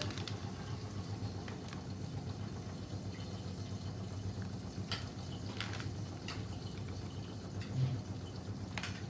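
Metal spoon clicking lightly against a ceramic bowl a few times while spice powder is tipped in, over a steady low background hum.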